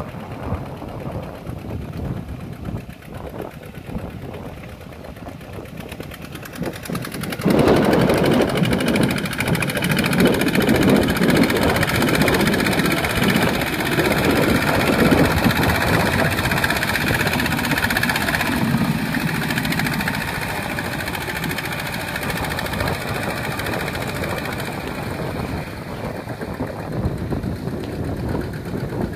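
Kubota RT120 single-cylinder diesel engine on a two-wheel walk-behind tractor, chugging with a steady knocking beat as the tractor ploughs through deep paddy mud. It runs noticeably louder from about seven seconds in, then eases off gradually.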